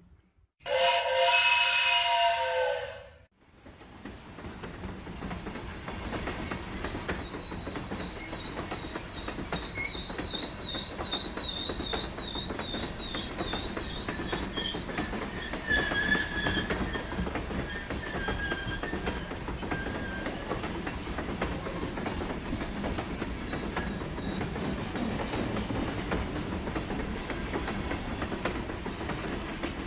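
A train whistle blows once for about three seconds. Then a train passes close by: a steady rumble of wheels clattering on the rails, growing louder over the first several seconds, with faint high wheel squeals.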